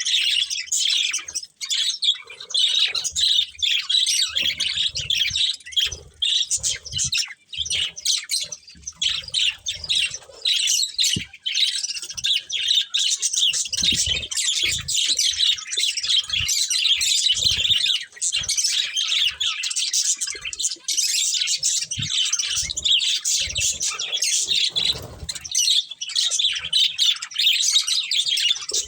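Budgerigars chattering and chirping continuously, several birds at once in a rapid overlapping warble, with occasional low taps and thumps.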